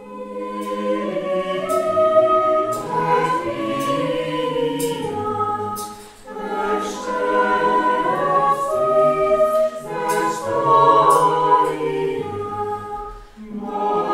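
A choir singing sacred music in several voices, with held chords and short breaks between phrases about six seconds in and near the end.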